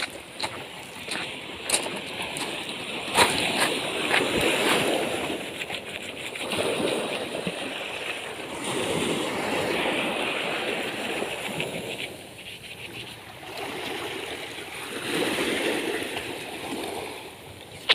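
Water sloshing and splashing in swells that rise and fall every few seconds, with scattered light clicks and knocks.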